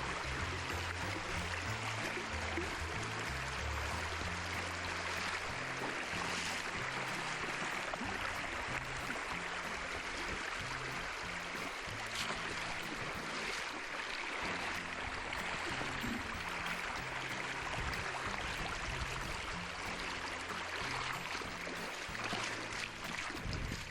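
Steady rushing of flowing water, with background music underneath.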